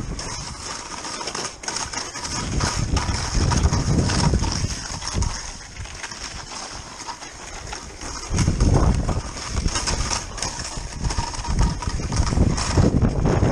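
Skis scraping and chattering over icy, wind-crusted snow on a downhill run, with wind buffeting the microphone in uneven swells of low rumble.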